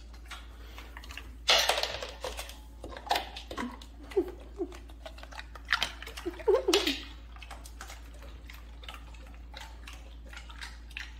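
Siberian husky lapping water from a bowl: a quick run of wet laps and small splashes, with a few short squeaky sounds mixed in.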